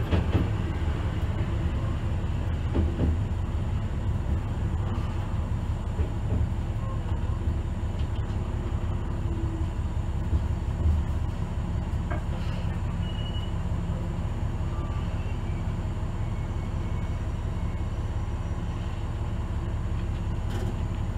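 Ihara Railway train running on elevated track, heard from the front of the car: a steady, deep running noise with a few faint clicks near the start.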